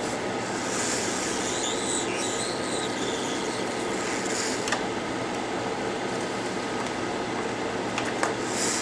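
Steady blowing of a hot-air rework station's fan, with shirt fabric rubbing against the microphone about one to three seconds in and a few small clicks near the middle and near the end.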